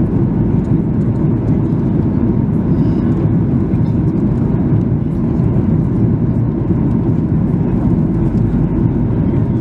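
Steady low roar inside the cabin of a Boeing 737-800 on landing approach, its CFM56 engines and the airflow over the wing heard from a window seat. The level stays even throughout.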